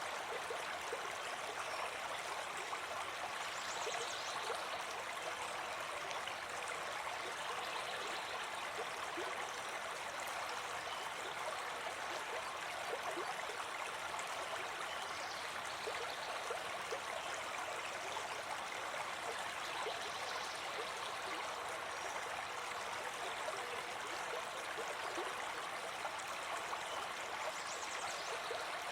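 Small brook babbling and gurgling steadily over stones.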